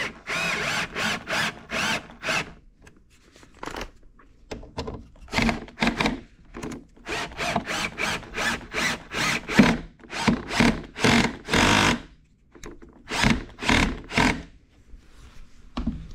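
Festool cordless drill-driver running in short trigger bursts as it drives screws through a concealed hinge's mounting plate into a wooden cabinet door. There is a quieter lull of a couple of seconds after the first run of bursts.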